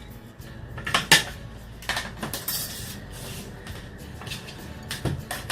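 Plastic back cover of a Samsung Galaxy Tab 3 Lite T113 tablet being pried open: several sharp clicks and snaps as its clips let go, with a short scrape of the prying tool about halfway through.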